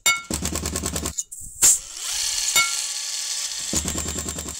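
Intro sting made of power-drill sound effects: a drill running with a fast rattle, a brief pause and a sharp loud hit, then a steadier run and another rattling drill burst near the end.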